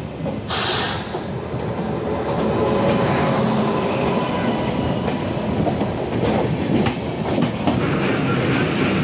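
Passenger train running on the rails at close range: steady rolling wheel-and-track noise, with a short hiss about half a second in.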